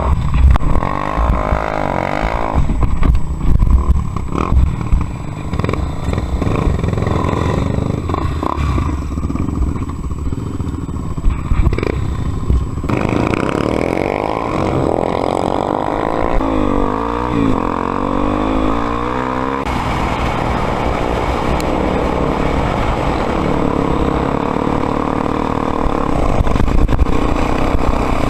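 Honda XR250 Tornado trail motorcycle's single-cylinder four-stroke engine running under way, rising and falling in pitch as the throttle is worked and settling steadier in the last third. Low rumble and short knocks run through the first half.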